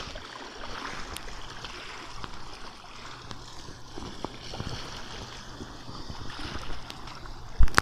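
Shallow sea water lapping and trickling over rocks, a steady wash with small splashes. A loud thump near the end.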